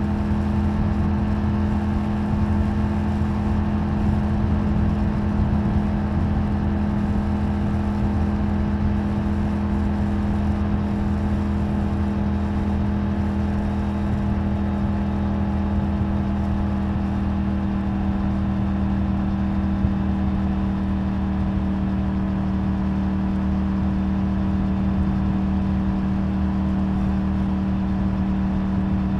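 Triumph Tiger 900 Rally Pro's three-cylinder engine with its stock exhaust, heard from the rider's seat while cruising at a steady throttle. The engine note holds one even pitch throughout, with no revving up or down.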